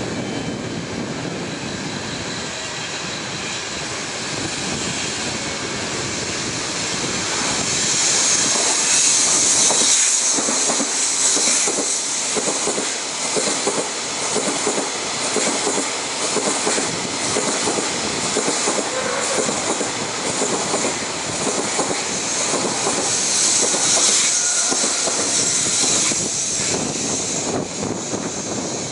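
JR Freight M250 Super Rail Cargo, an electric multiple-unit container freight train, approaching and passing close by at speed. Its wheels clatter in a steady rhythm over the rail joints. The noise builds over the first several seconds, stays loud while the wagons pass, and eases off near the end as the train leaves.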